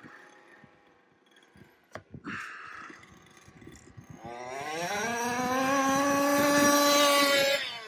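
HPI Baja RC car's Zenoah G32 32cc two-stroke engine with a resonance pipe: quiet at first, then from about four seconds in it revs up hard to full throttle. The pitch climbs and holds high for a couple of seconds before the throttle is let off near the end and the pitch falls away.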